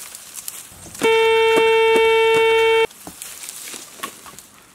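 Metal detector giving its target signal: one loud, steady tone of fixed pitch lasting about two seconds, starting about a second in and cutting off suddenly. This is the sign that metal lies under the search coil.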